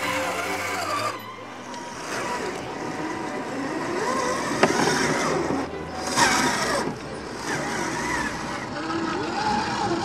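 Electric motor and gears of a scale RC crawler truck whining as it crawls along a dirt trail, the pitch rising and falling with the throttle, with a sharp click about halfway through.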